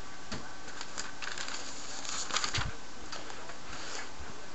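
Paper being handled: scattered light clicks and a short burst of rustling a little past halfway, over a steady hiss.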